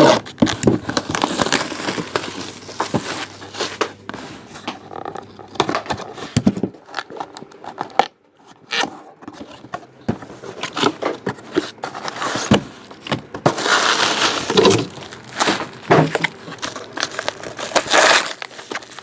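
A sealed trading-card box and its wrapping being opened by hand: irregular crinkling, tearing and scraping of packaging with small knocks, in several bursts with the densest crinkling about two-thirds of the way through and again near the end.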